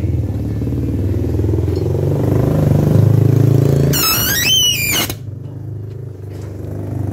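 Cordless drill driving screws into the wooden crate frame around an egg incubator: a steady low hum that swells under load, then about four seconds in a high whine that rises in pitch for about a second and cuts off sharply as the trigger is let go.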